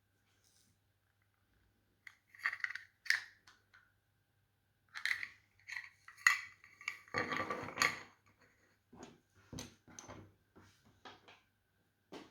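Small plastic and metal parts of a USB-C to VGA adapter being handled on a hard surface: scattered clicks and clinks, with a longer scrape about seven seconds in.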